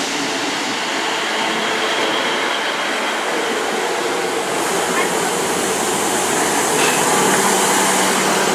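Class 158 diesel multiple unit running at the platform: a loud, steady engine hum with a hiss over it.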